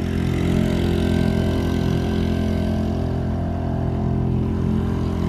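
Boat engine running steadily at a constant pitch.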